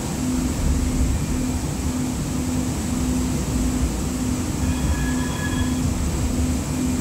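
Interior of a Siemens S200 LRV4 light rail car running on the rails: a steady low rumble with a low hum that pulses a little under twice a second. A brief faint high squeal comes about five seconds in.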